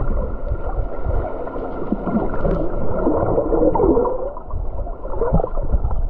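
Muffled underwater churning and gurgling of moving water, as heard by a submerged camera microphone, with irregular bubbly gurgles throughout.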